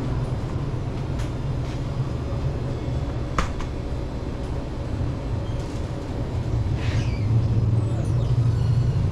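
A vehicle engine running with a steady low rumble, with a single sharp click about three and a half seconds in.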